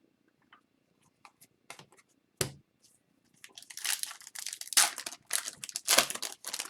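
A single sharp knock, then a foil wrapper of a 2021-22 Upper Deck Extended Series hockey card pack being torn open and crinkled, a dense crackling with a few louder rips.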